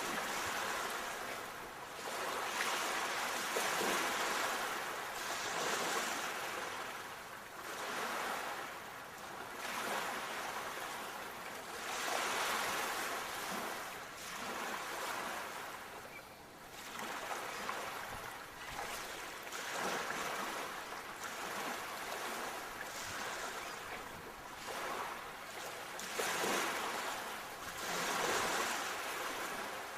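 Sea waves breaking and washing on a shore: a continuous hiss of surf that swells and falls back every few seconds.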